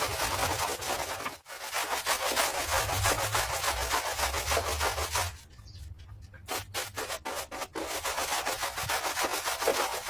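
Brush scrubbing concrete in quick, closely spaced strokes. A little past the middle the scrubbing thins out to a few separate strokes before going on steadily again.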